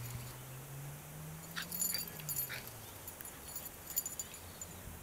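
A Greater Swiss Mountain Dog and a Bernese Mountain Dog puppy playing tug with a rope toy, with a few light jingles from about a second and a half in and again near four seconds. Under it, a low hum climbs slowly in pitch and fades out about halfway through.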